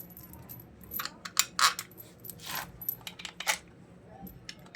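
Small metal nuts and a spanner clinking as the nuts are fitted onto a Honda Shine motorcycle's clutch cover: a string of sharp metallic clicks, the loudest between about one and three and a half seconds in.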